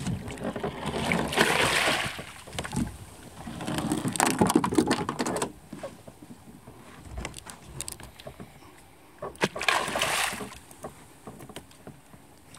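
A hooked Papuan black bass thrashing and splashing at the water's surface in three surges: about a second in, again around four to five seconds, and near ten seconds.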